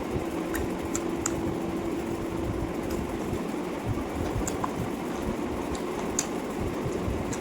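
A person eating: a few short, scattered smacks and clicks of chewing over a steady low background rumble.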